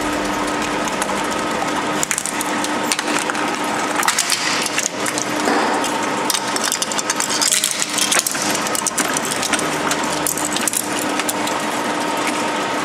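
Twin-shaft shredder running with a steady hum while its steel blades crush a plastic Play-Doh toy, giving a run of cracking and snapping from about two seconds in, thickest in the middle, before it settles back to the plain hum near the end.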